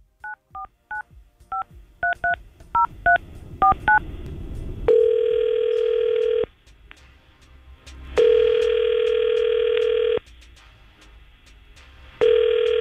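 A telephone call being placed: about ten quick touch-tone dialling beeps over the first four seconds, then the ringback tone ringing three times, each ring a steady tone of about one and a half to two seconds with pauses between.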